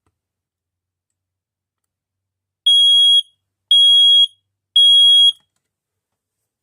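Hallway smoke alarm sounding its test: three loud, steady high-pitched beeps about a second apart, the temporal-three alarm pattern, set off by holding the test button down with the horn uncovered.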